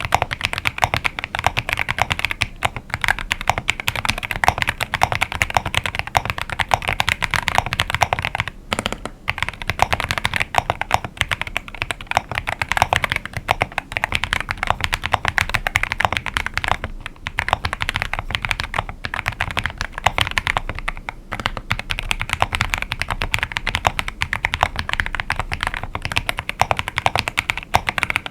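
Continuous typing on a Monsgeek M1W aluminium mechanical keyboard with Akko V3 Lavender Purple Pro tactile switches: a dense stream of clacky, poppy keystrokes with a few brief pauses.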